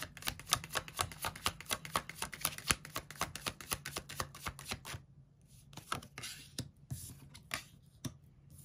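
A deck of cards being shuffled: a rapid run of crisp card flicks that stops about five seconds in, followed by a few softer slides and rustles of the cards.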